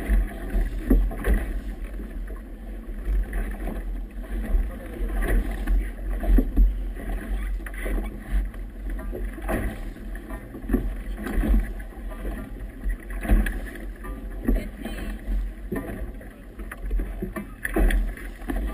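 Wind buffeting the microphone on a boat in choppy water, a steady low rumble with irregular knocks and splashes as waves hit the hull.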